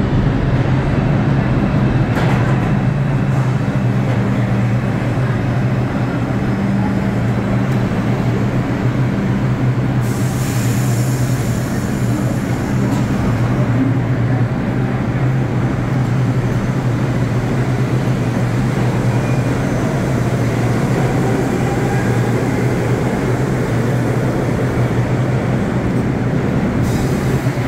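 New York City subway trains running through an underground station: a steady, loud rumble of cars on the track over a constant low hum, with a stretch of hiss about ten seconds in.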